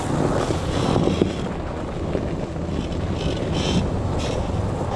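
2006 Toyota Tacoma's rear leaf-spring pack squeaking as the truck drives slowly over a snowy trail, short high squeaks repeating, several in quick succession in the second half, over the steady low rumble of the engine and tyres.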